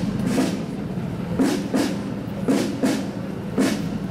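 Military band's marching drums beating a march cadence, with sharp strokes about once a second, often in pairs.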